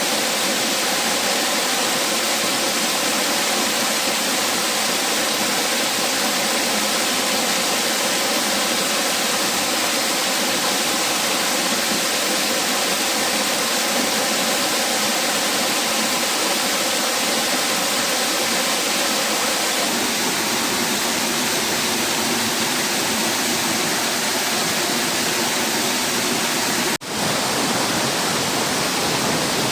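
Rushing water, a loud, steady and unbroken rush, with a brief dropout about three seconds before the end.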